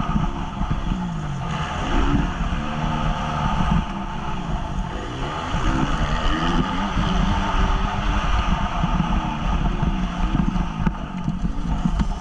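Honda CRF 250 motocross bike's four-stroke single-cylinder engine, heard from the rider's helmet, revving hard and dropping back again and again as the throttle is opened and shut around the track.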